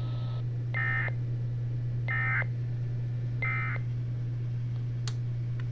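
NOAA Weather Radio end-of-message SAME data tones: three short, shrill digital bursts about a second and a half apart, signalling the end of the severe thunderstorm warning. A steady low hum runs beneath them, and radio hiss cuts off shortly after the start.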